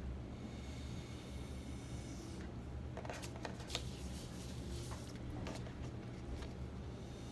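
A sheet of watercolour paper being lifted and turned around on a plastic tray: a few light papery rustles and taps through the middle, over a steady low hum.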